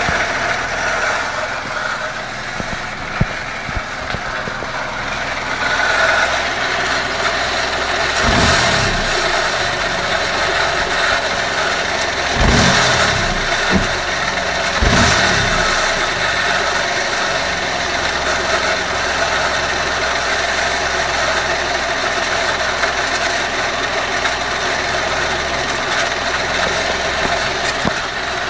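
Small car engine running with a steady whine from a failing water pump, swelling briefly louder three times.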